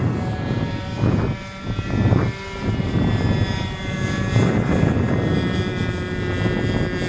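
Pete N Poke RC model airplane flying overhead, its motor and propeller giving a steady drone, with gusts of wind noise on the microphone swelling now and then.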